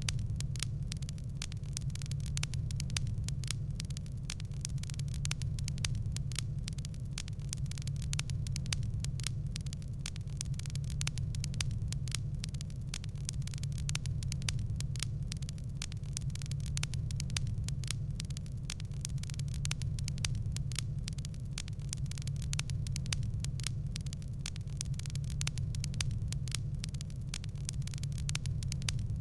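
Fireplace fire crackling: dense, irregular small snaps and pops over a steady low rumble.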